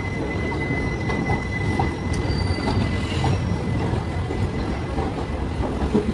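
Godavari Superfast Express passenger coaches rolling past along the platform: a steady rumble of wheels on rail with scattered wheel clicks. A thin, high wheel squeal fades out about two seconds in.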